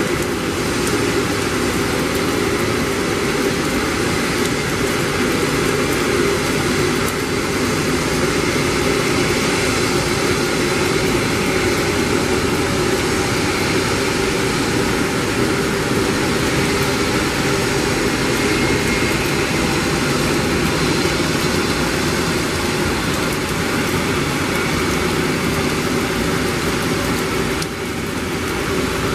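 Airbus A330-200 jet engines running at taxi power as the airliner rolls past, a steady jet rumble and whine mixed with the hiss of heavy rain.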